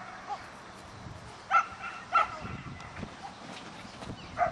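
Small dog barking in short, high yaps: two sharp, loud barks about one and a half and two seconds in, with softer ones near the start and end.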